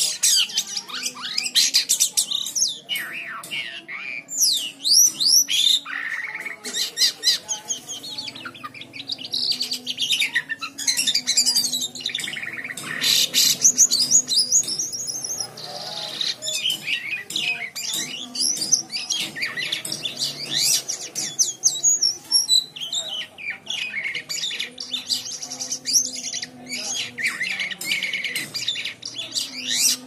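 Caged jalak kapas (kapasan) songbird singing on and on: a fast, varied run of high chirps, whistled up-and-down glides and trills with only brief pauses.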